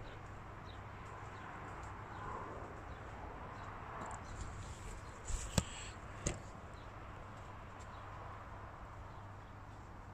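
Faint steady outdoor background with a low hum, broken by a few short sharp clicks about five and a half and six seconds in, from handling the latex bands on a skate-wheel band tester clamped in a vise.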